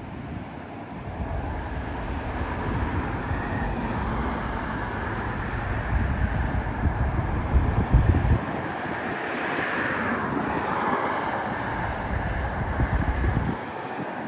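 Wind buffeting the microphone outdoors, gusting harder from about a second in until near the end, over a steady rushing background. A brief swelling whoosh passes about ten seconds in.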